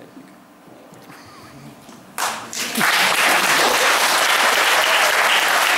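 Audience applauding: low room tone, then clapping starts suddenly about two seconds in and keeps going at a steady level.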